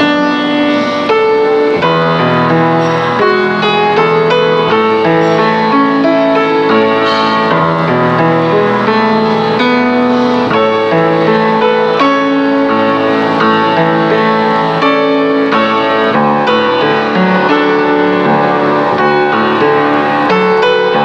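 Background music led by piano, with held notes.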